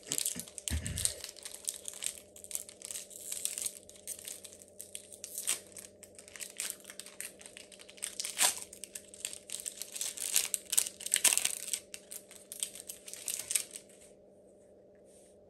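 Foil wrapper of a Pokémon TCG booster pack crinkling and being torn open in quick, irregular crackles, stopping shortly before the end.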